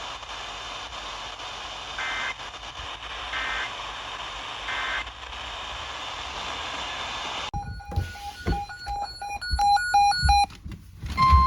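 Weather radio broadcast with steady static hiss, broken by three short two-tone data bursts about 1.4 s apart: the digital SAME alert header that precedes a new warning. About halfway through comes a run of rapid electronic beeps, and near the end the steady NOAA Weather Radio warning alarm tone starts.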